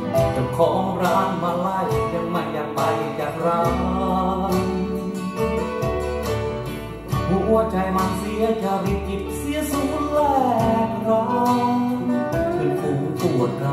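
A Thai song playing from a vinyl record through hi-fi loudspeakers: guitar-led band music with a steady beat.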